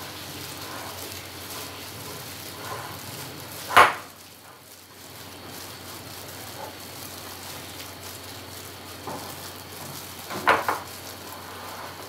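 A plastic-gloved hand squishing and mixing mashed-potato filling in a glass bowl: a steady soft rustle with a few sharp clicks. The loudest click is about four seconds in and another comes about ten and a half seconds in.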